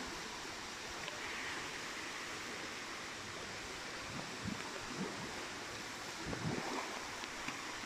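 Steady rush of river water flowing past, with a few faint soft sounds in the second half.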